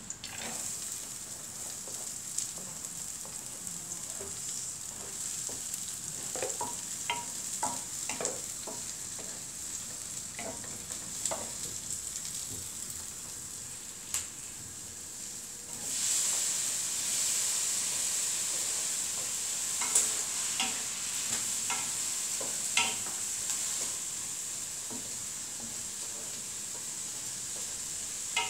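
Garlic and onion sizzling in oil in an aluminium pan, stirred with a wooden spatula that scrapes and knocks on the pan now and then. About sixteen seconds in the sizzle gets louder as chopped tomato and ginger are tipped in.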